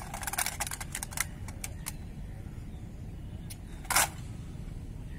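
Rifle drill by a squad: a ragged run of sharp clicks and slaps of hands on rifles over the first two seconds, then one loud, sharp crack of the squad moving in unison about four seconds in.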